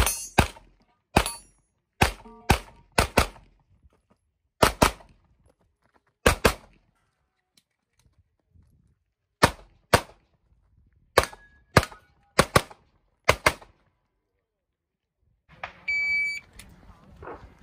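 9mm pistol shots from a CZ75 TS Czechmate competition pistol, fired mostly as quick pairs with short pauses between them and a longer lull partway through. A short electronic beep sounds near the end, just before more shots.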